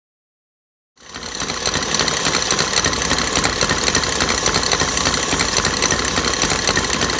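Stand mixer running at speed, its wire whisk beating egg whites and sugar into meringue. The loud, steady motor noise starts abruptly about a second in.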